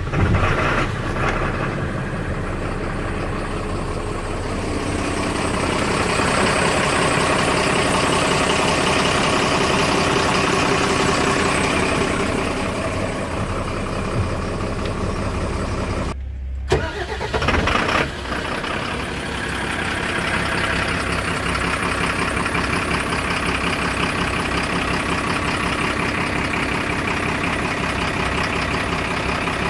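Mercedes-Benz Atego 1628's OM906LA six-cylinder turbo diesel cold-starting at −2 °C, catching almost at once, then idling steadily. There is a brief dip about sixteen seconds in and a couple of short bumps just after.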